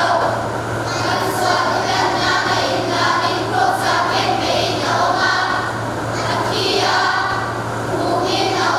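A children's choir singing together, with a steady low hum underneath.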